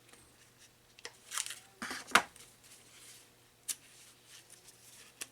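Paper manual and packaging being handled: two short rustles about one and two seconds in, the second louder, then a single sharp click near four seconds.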